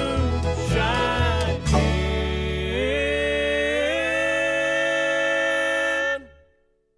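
Old-time jug band of guitar, banjo, fiddle and upright bass playing the last bars of a hillbilly song, then striking a long held final chord with notes sliding up into it, which stops about six seconds in.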